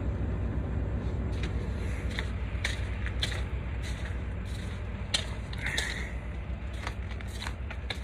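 Footsteps crunching on icy, snow-covered ground at a walking pace, about two steps a second, over a steady low rumble.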